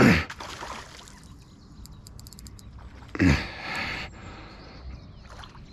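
A hooked tench splashing and thrashing at the water's surface while it is being drawn toward the landing net, with two loud splashes about three seconds apart.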